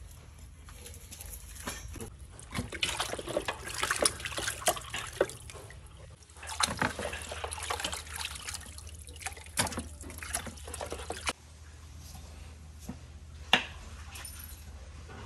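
Water splashing and sloshing as hands wash cow bones in a metal basin, with the bones clacking against each other and the basin. There is a single sharp knock near the end.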